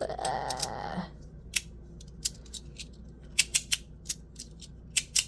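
Sliding magnetic fidget slider's 3D-printed plates being worked by hand: a short scraping slide at the start, then a scatter of sharp clicks, several in quick succession about three and a half seconds in.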